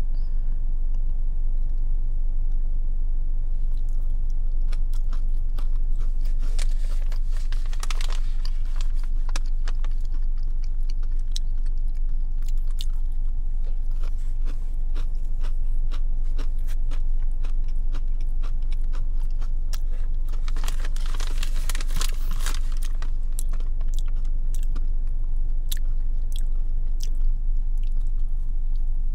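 Close-up crunching and chewing of a Nature Valley almond butter granola bite, a crunchy granola shell with a soft filling: a run of crisp crackles, with two louder bursts of crunching about a quarter of the way in and again about two-thirds through. A steady low hum sits underneath.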